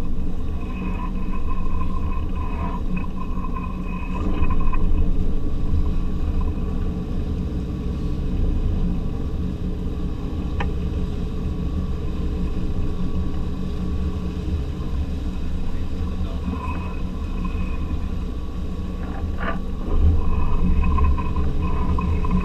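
Fishing boat's engine running with a steady low drone. A faint high whine comes and goes over it, and there is a single sharp click about ten seconds in.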